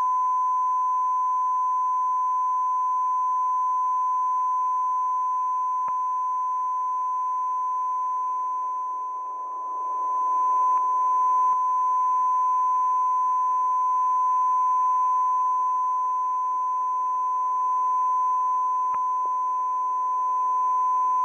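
Shortwave Morse station (the Russian M42b) heard through a receiver in CW mode as one steady, unbroken beep tone from its unkeyed carrier, over band hiss. The signal briefly fades about nine seconds in.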